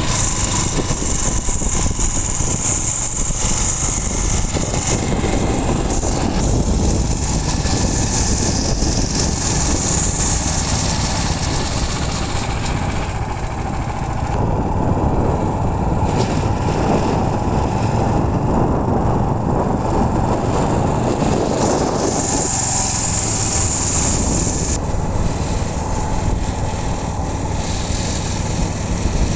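Small generator-type petrol engine on a motorized bicycle, running continuously. For about ten seconds midway its sound grows fuller and less hissy, then returns to its earlier note.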